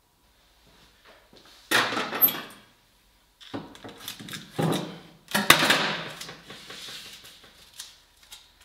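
Objects being handled: several separate bursts of clattering and rustling, with one sharp click about two-thirds of the way in.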